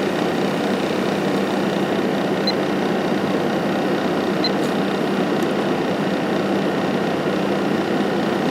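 Midea 8,000 BTU window air conditioner running with its GMCC compressor on and the fan on medium: a steady rush of air over a constant low hum.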